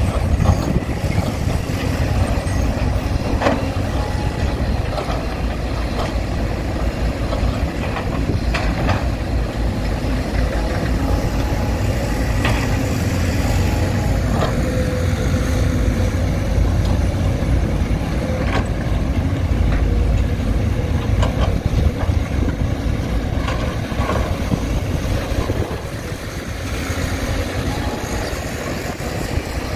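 Heavy diesel machinery running steadily, an excavator and dump truck at work, with occasional sharp knocks and clanks scattered through.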